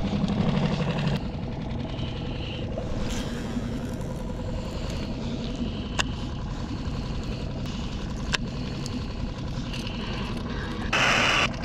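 A small boat's motor running steadily, with wind and water noise and a couple of faint clicks; a loud burst of hiss comes in near the end.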